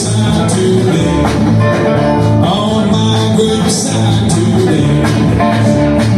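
Acoustic guitars and upright bass playing a country-blues passage in a loose, steady groove, with plucked guitar notes over sustained bass notes.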